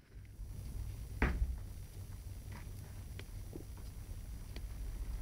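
A cat moving about on a shaggy rug while chasing its tail: a dull thump about a second in, then a few faint light taps, over a low steady hum.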